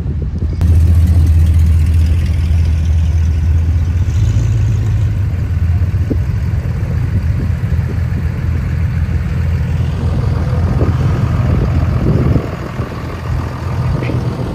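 A vehicle engine running steadily at a low, even idle. The level drops about twelve seconds in.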